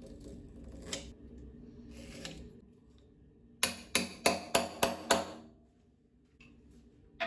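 A hammer striking a lathe drive centre into the end grain of a firewood log: six quick, ringing blows about four a second. Before them comes a faint scratching of the centre being marked.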